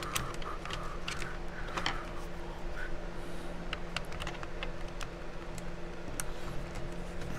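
Scattered small clicks and taps of hands handling the opened plastic radio case, its parts and a screwdriver on a workbench, over a steady low hum.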